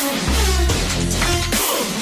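Background electronic music with deep bass notes that slide downward.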